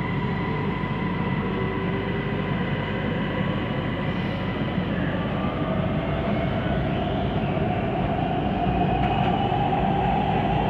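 Siemens Inspiro metro train heard from inside the car, running with a steady, weird rolling noise. From about halfway a whine rises slowly in pitch as the train gathers speed.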